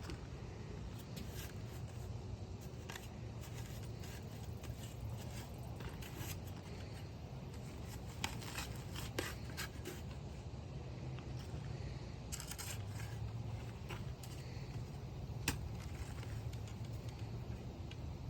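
Scattered short scrapes and clicks of hand work in soil and roots over a steady low hum, with a sharper snap about fifteen seconds in.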